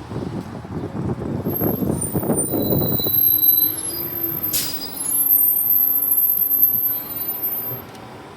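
City transit bus pulling in and stopping: engine and tyre rumble, then high brake squeals and a sharp air-brake hiss about four and a half seconds in. The bus then kneels, its air suspension venting with a loud squealing hiss for about two and a half seconds before it cuts off.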